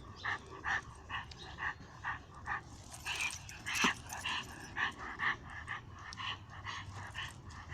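Dogs barking in a steady run of short barks, about two to three a second, squaring off against each other.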